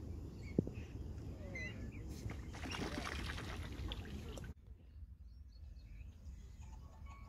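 Low, steady wind rumble on the microphone with two sharp knocks near the start and a few high peeps from waterbird chicks. From about two seconds in, a couple of seconds of splashing as the chicks paddle off into the water, then the sound cuts abruptly to a quieter background.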